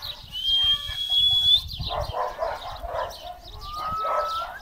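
Farmyard chickens clucking, with two long steady whistle-like tones that each flick upward at the end. The first, high and loudest, comes just after the start and lasts about a second; the second, lower, comes near the end.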